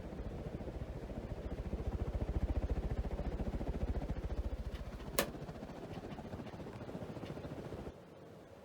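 Hunter Original ceiling fan running, its blades moving air that pulses fast and evenly in a low rush. One sharp click comes about five seconds in, and the sound drops away sharply near the end.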